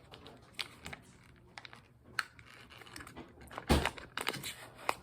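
Scattered light clicks and taps of objects being handled, with one louder thump a little before four seconds in.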